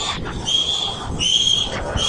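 Osprey giving repeated high whistled calls, each about half a second long and a little under a second apart, over crackling interference on the nest webcam's audio.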